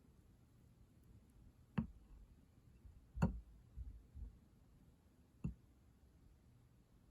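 Three sharp clicks spaced out over the stretch, the loudest about three seconds in, followed closely by two soft low knocks.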